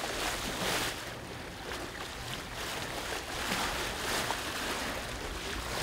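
Sea water washing and splashing along a sailing yacht's hull, in irregular surging rushes over a steady hiss.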